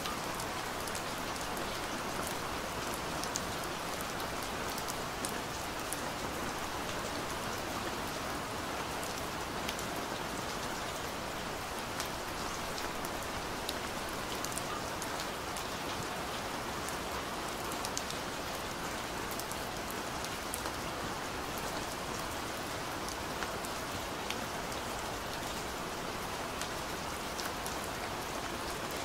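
Steady rain: an even hiss, with scattered sharp ticks of drops.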